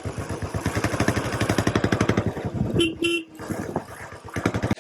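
Motorcycle engine running with a rapid, even beat, then a short horn toot about three seconds in, after which the engine sound drops away.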